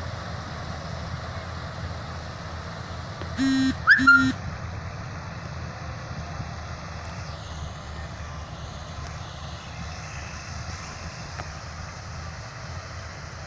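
Combine harvester running with a steady low rumble. A vehicle horn sounds two short toots about three and a half seconds in.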